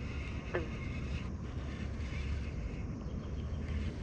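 Wind buffeting the microphone, a steady low rumble, with one short falling whistle about half a second in.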